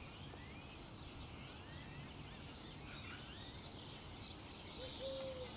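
Faint outdoor background noise with small birds chirping and singing in the distance throughout, and a brief low note near the end.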